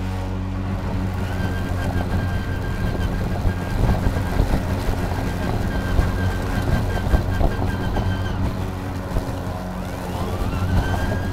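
EGO Power+ LM2135SP 56 V battery self-propelled lawn mower running while cutting grass: a steady electric motor and blade hum with an uneven rustle from the grass being cut. A high whine sets in about a second in, drops out around eight seconds and rises back in near the end.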